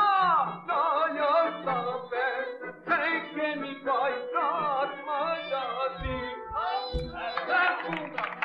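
A solo voice singing a traditional Albanian wedding song in phrases with wavering, ornamented turns, over a steady accompanying drone. Two low thumps come near the end.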